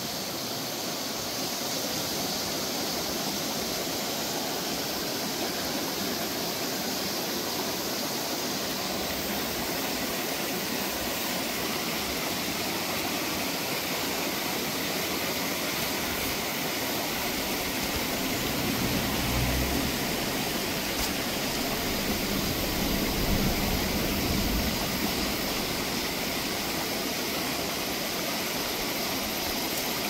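Shallow rocky mountain stream running over stones: a steady rush of water, with some low rumbling that swells briefly about two-thirds of the way through.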